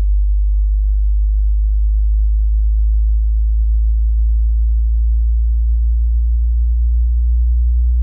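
Steady, loud, very low-pitched sine test tone from a hearing test.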